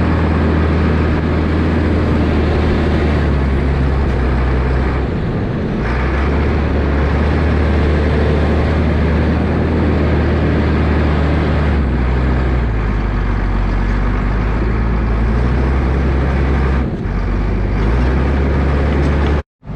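Massey Ferguson 8480 tractor's diesel engine running steadily while loading manure with the front-loader bucket, its note shifting a few times as the load and revs change.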